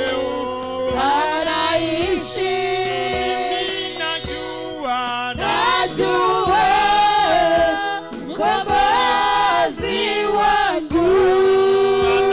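Live gospel worship singing through microphones: several voices sing a slow song together with long held notes, over faint regular percussion ticks.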